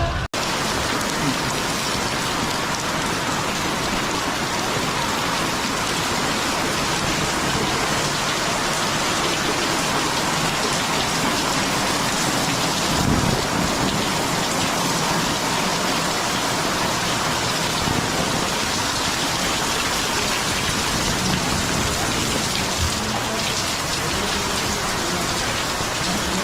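Heavy rain falling steadily and pattering on surfaces, a dense, even hiss.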